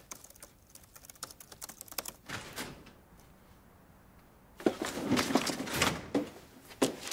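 Laptop keyboard typing, a quick run of key clicks that stops after about two and a half seconds. After a short quiet gap, a louder stretch of thumps and rustling begins about four and a half seconds in, as a door opens and someone moves.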